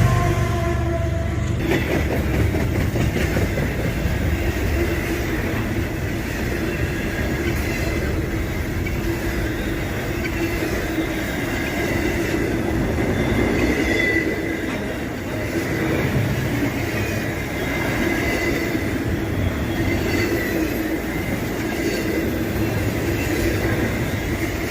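CSX intermodal freight train's container and trailer cars rolling past close by: a steady rumble of wheels on rail with a thin metallic wheel squeal. The locomotive horn's last tones fade out about a second and a half in.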